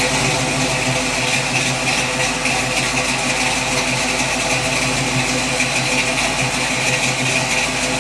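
1977 Chevrolet Camaro's engine idling steadily through its new exhaust.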